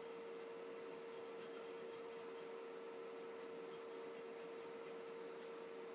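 Faint rubbing and scratching of fingers pressing a sticker decal down onto a bare wooden axe handle, over a steady low hum.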